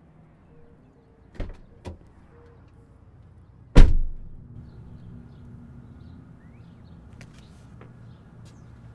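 Two sharp clicks, then a single heavy slam just under halfway through, followed by a low steady rumble with a few faint ticks.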